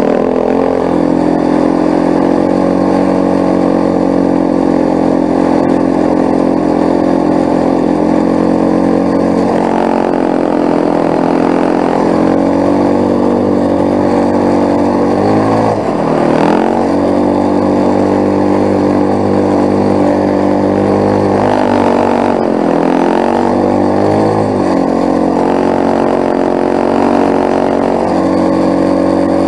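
ATV engine running steadily under load while towing sleds across snow. Its pitch dips and climbs back twice, around the middle and again a few seconds later, as the throttle eases and opens again.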